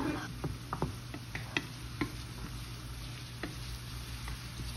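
Diced onion and green onion frying in a pan with a light sizzle, while a wooden spatula stirs them, scraping and tapping against the pan at irregular moments.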